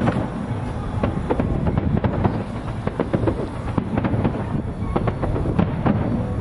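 Fireworks display: a rapid, continuous run of shell bursts and crackling over a steady low rumble.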